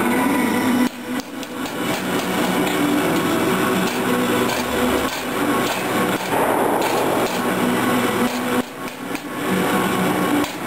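Repeated hammer strikes on metal during forging, with short breaks about a second in and again near the end.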